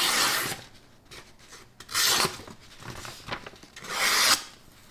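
Big Idea Design Ti Pocket Knife II's M390 blade slicing through a sheet of paper: three slicing cuts about two seconds apart, each lasting about half a second, with light paper rustling between them. It is a sharpness test, and the edge is very sharp straight out of the box.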